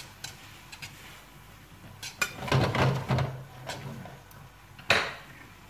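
Metal tongs tossing spaghetti in a frying pan, clicking and scraping against the pan. There are scattered light ticks, a busier clatter in the middle, and one sharp clack near the end.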